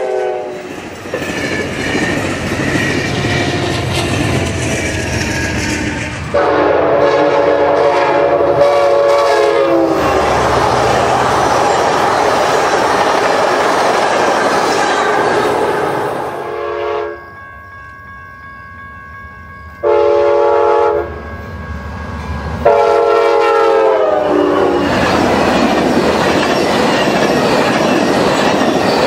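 Diesel passenger trains passing at speed, one after another, with the rumble and clickety-clack of the cars. Their multi-note air horns sound several times: a long blast about six seconds in whose pitch drops as the locomotive goes by, short blasts later on, and a last blast that also drops in pitch.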